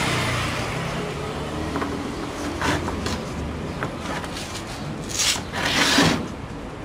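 Sheet-metal rodent-guard plate of a washing machine sliding and scraping over concrete as it is pushed back into place. There are a few short rubs, then two longer, louder scrapes near the end.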